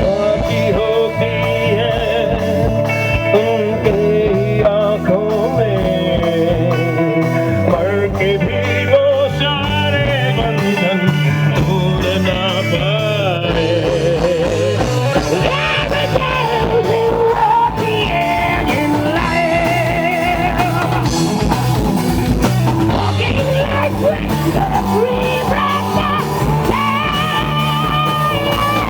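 Rock band playing live: a singer holding long, wavering notes over guitar, bass and drums, the sound growing fuller about halfway through.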